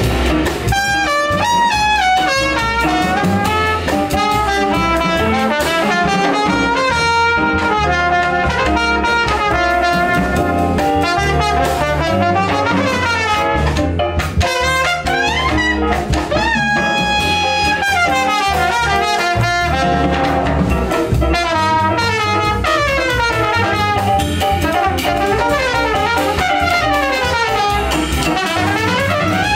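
Live jazz trumpet solo in quick runs of notes, rising and falling, over plucked upright bass and a drum kit.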